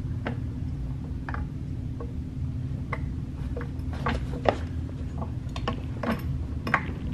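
Floor jack being pumped, its saddle and hockey puck rising toward the car's jacking point: irregular mechanical clicks and ticks that come more often in the second half, over a steady low hum.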